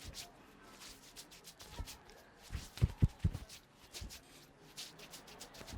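A barber's hands rubbing and kneading during a head massage: quick rustling strokes on hair and skin, with a cluster of dull thumps about three seconds in.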